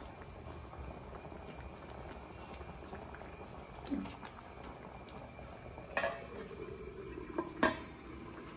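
Thick curry simmering and bubbling in a pan. A metal lid clanks onto the pan about six seconds in, ringing briefly with a falling pitch, and clanks twice more near the end as it settles.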